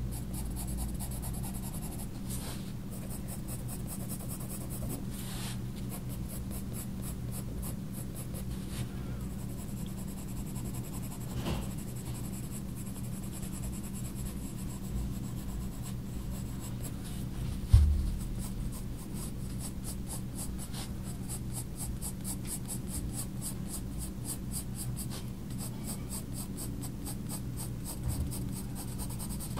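Coloured pencil (Faber-Castell Polychromos) scratching across sketchbook paper in quick, repeated shading strokes that come faster in the last third, over a low steady hum. One dull thump about two-thirds of the way through.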